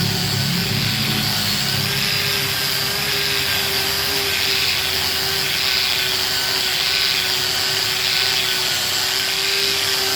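Handheld angle grinder sanding a solid-wood chair seat: a steady motor whine over a constant rough sanding hiss.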